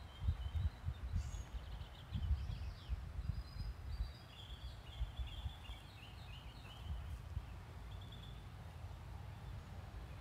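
Wind buffeting the microphone in uneven gusts, heaviest in the first few seconds, with birds chirping in quick, stuttering phrases through the first half and once more later.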